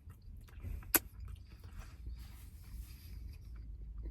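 A man chewing a mouthful of chicken, bacon and stuffing pastry slice: soft, wet mouth sounds, with one sharp click about a second in.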